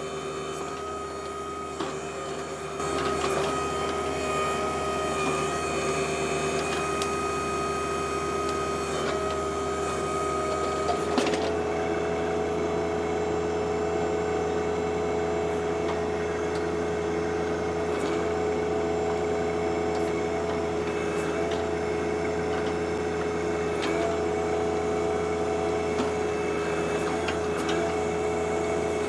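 Compact diesel tractors running steadily under backhoe work, with a hydraulic whine, their engine note shifting a few seconds in and again about eleven seconds in. Occasional sharp knocks come from the bucket teeth striking wood.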